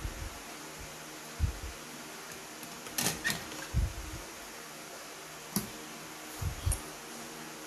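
Scattered light knocks and a couple of sharp clicks from handling a helping-hands clamp and the XLR connector held in its alligator clips, over a faint steady hum.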